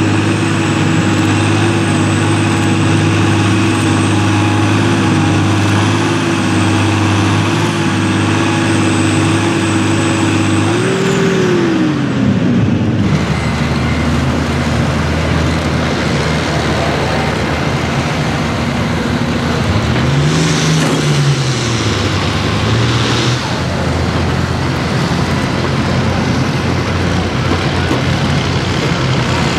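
Diesel engines of farm tractors at full load pulling a weight-transfer sled. First a Ford tractor's steady drone, which drops in pitch about eleven seconds in as the pull ends. Then an International Harvester tractor pulls hard, its engine note briefly rising and falling around twenty seconds in.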